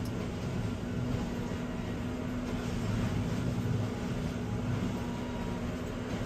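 Railroad track tamper running, a steady engine drone with a low rumble, heard from inside a car through the windshield.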